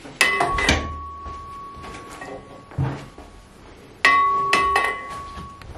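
Metal clanks from a home multi-gym as people get on and off the lat pull-down station. There are two sharp knocks, one at the start and one about four seconds later, and each leaves a bell-like metallic ring hanging for over a second. A softer thump comes between them.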